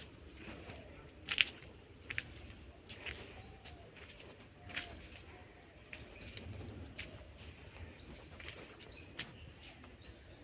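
Birds calling: short, high chirps repeated about once a second, with fainter, lower short calls between them. A few sharp clicks stand out, the loudest about a second and a half in.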